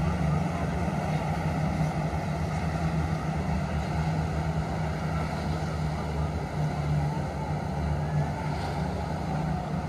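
Jet ski engines running steadily at high revs to drive water up through hoses to flyboards: a continuous drone with rushing water spray.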